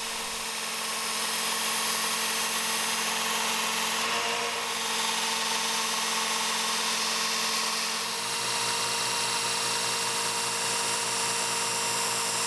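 Work Sharp belt sharpener with its Ken Onion Edition blade grinding attachment running, its abrasive belt grinding the profile of a tool-steel knife blank. Steady motor whine and belt hiss, shifting slightly about four and eight seconds in.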